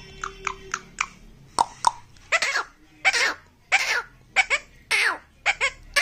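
Indian ringneck parakeet chattering: a run of short squawks and chirps, two or three a second, several of them falling in pitch.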